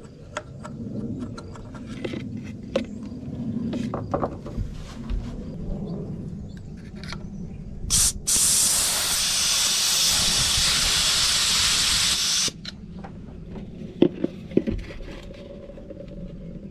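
Compressed-air blow gun blasting into the carburetor of a 1947 Case VAC tractor engine to blow out the main-jet passage. A short puff about eight seconds in is followed by a loud, steady hiss of about four seconds that cuts off sharply. Light tool clicks and knocks come before and after.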